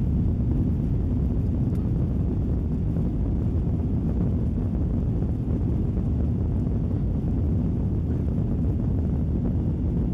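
Steady low rumble of a Boeing 737-900ER's CFM56 jet engines and airflow, heard inside the passenger cabin.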